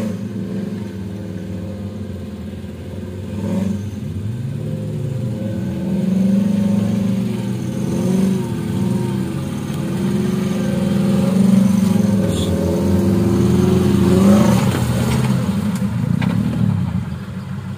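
Suzuki Jimny off-roader's engine revving up and down under load as it crawls through a deep mud rut, the pitch wavering with the throttle.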